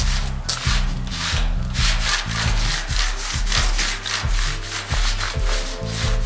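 Rag rubbing back and forth over the painted steel cab roof of a 1947 Ford truck in quick, rhythmic strokes, working silver paint into a bare-metal finish. Background music plays underneath.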